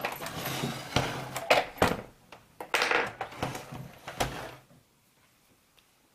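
Hands working on an all-in-one computer during reassembly: irregular clicks, knocks and brief scraping of its plastic and metal parts, dying away to near quiet for the last second and a half.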